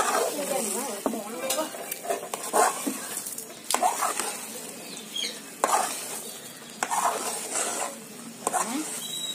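Perforated metal skimmer ladle stirring and scraping thick muskmelon halwa around a metal kadai, in repeated irregular strokes, while the halwa sizzles and bubbles on the heat.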